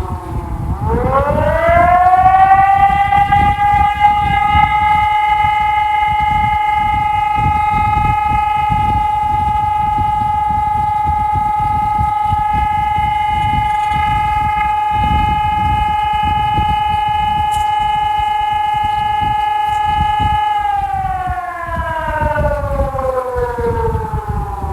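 Digitex DSE600S electronic civil-defense siren sounding a long steady tone. At the start the pitch dips, then rises over about two seconds to a held note. Near the end the note falls slowly, and it begins rising again just before the close.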